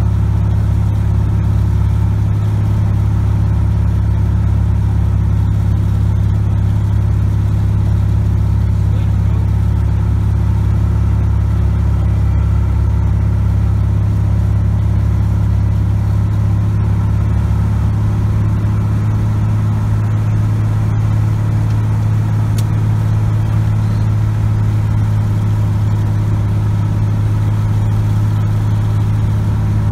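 Cessna 180 Skywagon's Continental O-470 six-cylinder engine and propeller droning steadily in flight, heard from inside the cockpit.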